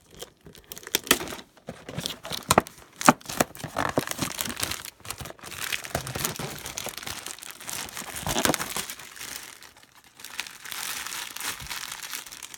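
Plastic wrapping of a trading-card pack being torn open by hand and crinkled, with irregular sharp crackles and stretches of steady rustling.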